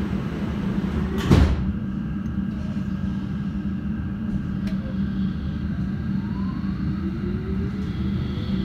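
Inside an S8 stock Metropolitan line train: a steady hum from the standing train, a single loud thud about a second in, then a slowly rising whine in the last couple of seconds as the traction motors start the train moving.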